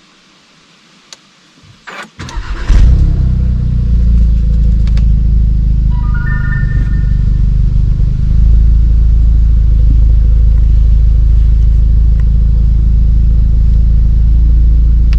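APR stage 2 tuned Audi S3's turbocharged 2.0-litre four-cylinder starting through its Remus exhaust, with a loud flare of revs as it catches about two and a half seconds in. It then settles into a steady idle.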